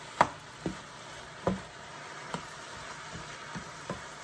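Seasoned meat frying in a pan with a steady sizzle as it browns. About five sharp clicks of a utensil against the pan, the loudest just after the start.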